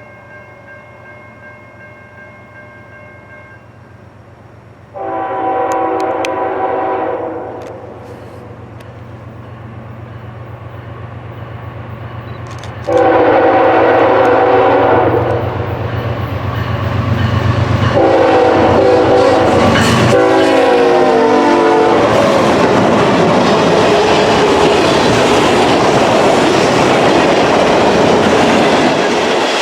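Freight train's lead diesel locomotive sounding its horn in the grade-crossing pattern, long, long, short, long, the last blast dropping in pitch as it passes. The engine rumble builds under the horn, then the loaded train rolls by with steady wheel clatter.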